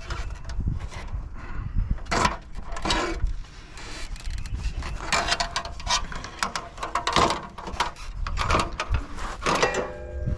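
Irregular clanks, rattles and knocks of scrap metal being handled and loaded.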